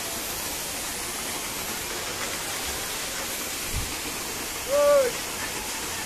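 Steady rush of a waterfall, with a brief high-pitched call rising and falling about five seconds in.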